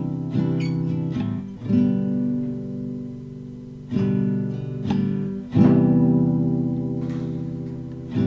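Background acoustic guitar instrumental music: plucked and strummed chords struck at uneven intervals, each left to ring and fade before the next.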